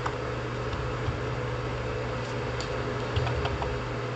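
A few light, irregular clicks of computer keyboard keys being pressed, over a steady low hum.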